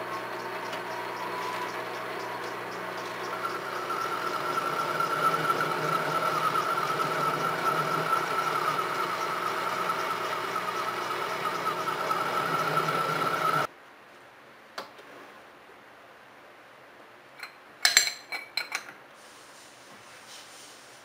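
Metalworking machine running steadily with a high whine that grows stronger about four seconds in, then cutting off abruptly past the middle; a few sharp metal clinks follow.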